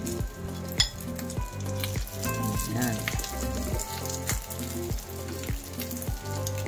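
Leftover rice sizzling as it fries with garlic in hot oil, stirred and pushed around the pan with a wooden spoon, with one sharp knock just under a second in. Underneath runs steady background music with a regular beat.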